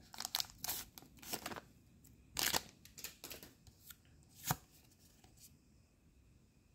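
Pokémon card booster pack opened by hand: the foil wrapper crinkles and tears, then the cards are slid out and handled. It comes as a run of short rustles and card snaps over about five seconds, the loudest about two and a half and four and a half seconds in.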